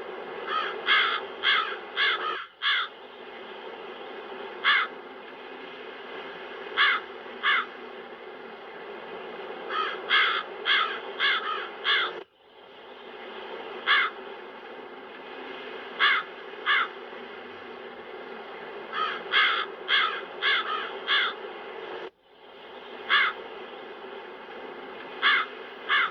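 Crows cawing: short harsh caws, singly and in quick runs of four or five, over a steady wind-noise bed. The bed drops out for an instant about every ten seconds.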